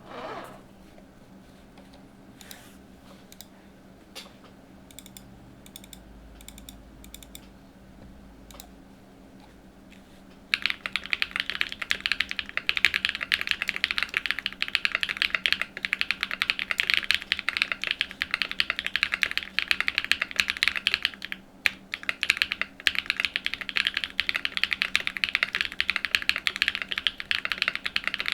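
Typing on a Cycle7 mechanical keyboard with an aluminium plate, factory-lubed Sarokey Strawberry Wine V2 switches and NK Spellbook keycaps. A few scattered faint key clicks come first, then fast continuous typing starts about a third of the way in and runs on, with one brief pause past the middle.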